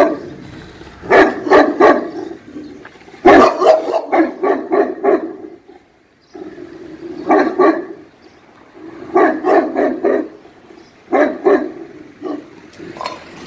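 Caucasian shepherd dog barking in short runs of several barks with pauses between them, the longest run about three seconds in.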